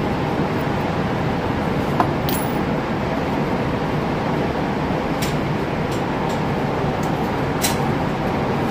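Steady loud rush of indoor shooting-range ventilation, with a few light metallic clicks and clinks from gear being handled on the bench. The sharpest clink comes about two seconds in. No shots are fired.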